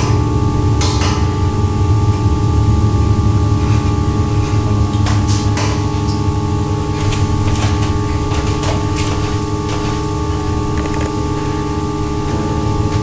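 Sustained dark ambient drone: a deep low hum with several steady ringing tones layered over it, unchanging throughout, with a few faint clicks on top.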